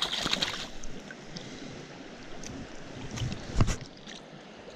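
Splashing in stream water as a brown trout is handled in a landing net, over the steady rush of the stream. A single dull knock comes about three and a half seconds in.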